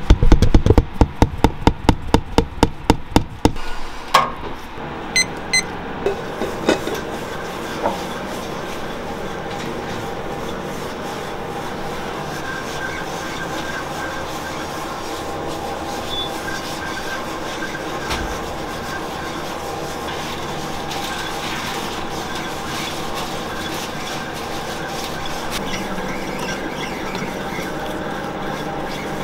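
A fast run of loud knocks for the first few seconds, slowing to scattered knocks, then a commercial dough mixer running steadily as its hook kneads bagel dough in the bowl.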